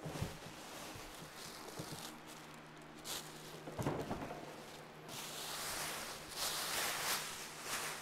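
Rustling of packaging and a few light knocks and bumps as a portable fridge is unpacked, with a faint steady hum underneath.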